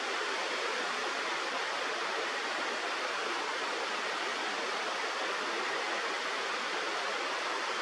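Steady rush of flowing river water, an even hiss with no change.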